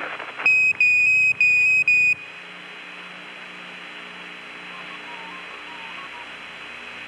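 Apollo air-to-ground radio link: a loud high-pitched beep broken into about four short pieces over a second and a half, then a steady hiss of radio static.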